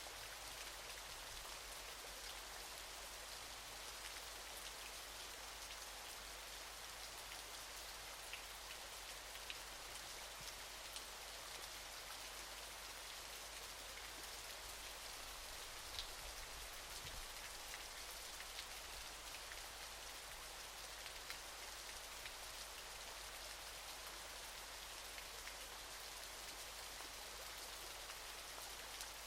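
Waterfall: a steady, fairly faint hiss of falling water, strongest high up, with a few scattered drip-like ticks.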